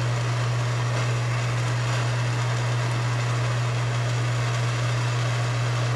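Home furnace running: a steady low hum with an even rush of air behind it.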